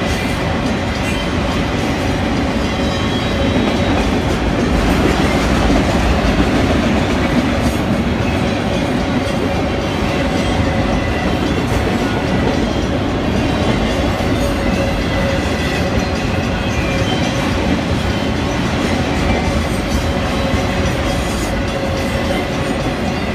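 Freight train of autorack cars rolling past, a loud steady rumble and clatter of steel wheels on the rails.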